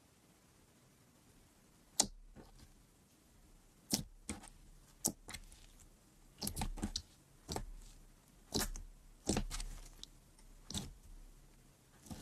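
Fingers pressing and kneading glossy slime, trapped air popping out in sharp, wet clicks and pops. The pops start about two seconds in and come irregularly, some in quick clusters.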